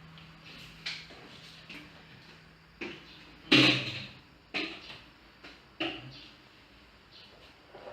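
A series of sudden knocks and clunks, the loudest about three and a half seconds in, over a faint low hum that stops around the same time.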